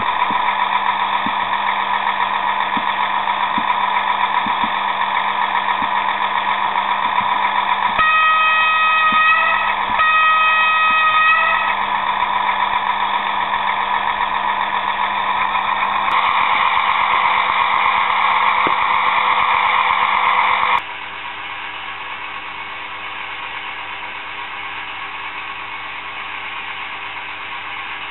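Onboard sound module of a Viessmann HO-scale Strukton ballast tamping machine model playing engine running sound through its small speaker. Two horn blasts come about eight seconds in. The engine sound changes about sixteen seconds in and drops to a quieter, steadier running sound about five seconds later.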